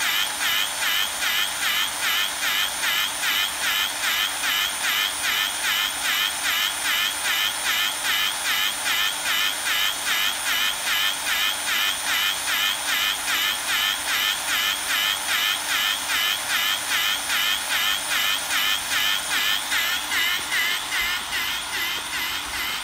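Electric C-type pipe bevelling machine cutting a bevel on a pipe end, its motor whine rising and falling two or three times a second. The pulsing weakens near the end.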